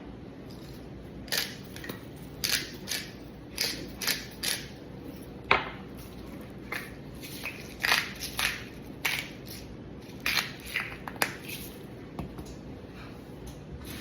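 Hand-held spice grinders being twisted, crunching in short irregular bursts, a dozen or more of them.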